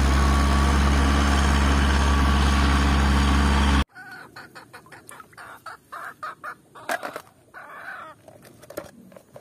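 Massey Ferguson 291 tractor's diesel engine running steadily under load while ploughing. It cuts off suddenly about four seconds in, leaving much quieter short calls and clicks.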